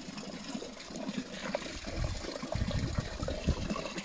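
Thin trickle of spring water running through grass and over wet ground. Low rumbling in the second half is louder than the trickle.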